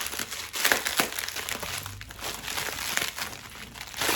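Plastic packing bag being handled and opened by hand: irregular crinkling and rustling, with sharper crackles about half a second in and again near the end.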